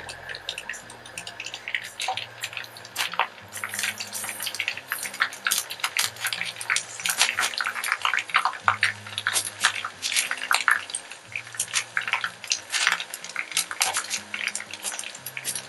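Pork rind frying in hot oil in a pan, sizzling with dense crackling and popping as the pieces puff up. The crackling grows thicker after about three seconds.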